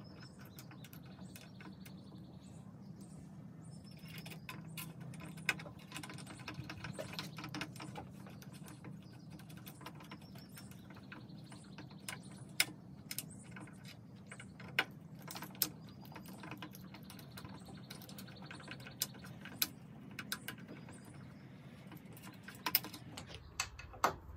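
Scattered small clicks and taps of hands handling wire connectors and metal parts on an air compressor's motor, over a steady low hum that stops near the end.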